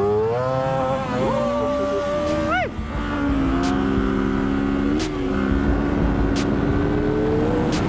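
Kawasaki Z650's parallel-twin engine pulling away from a stop, its pitch rising as the bike accelerates. About two and a half seconds in there is a quick rev and drop, typical of a gear change, and then the engine runs at a steadier, lower pitch that climbs again slowly near the end.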